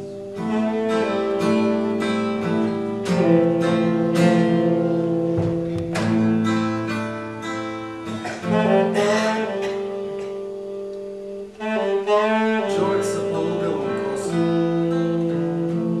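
Saxophone and guitar playing a slow instrumental: plucked guitar notes fading under long held saxophone lines, the saxophone wavering with vibrato in places.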